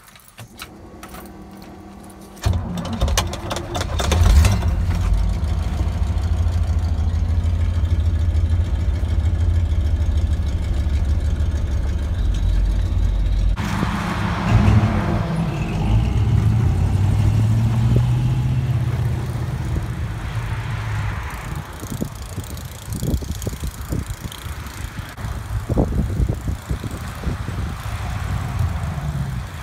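A 1972 Chevy K20's 350 small-block V8 with a four-barrel carburetor is started cold. It cranks for about two seconds, catches, revs once and settles into a steady idle. Later it is heard from outside, the engine pitch rising and falling as the truck moves off.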